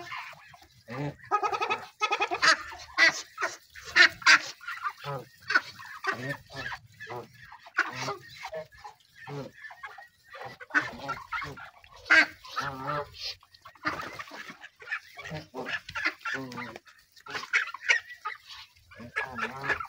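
A flock of geese and ducks calling, with many short honks and calls overlapping in irregular bursts.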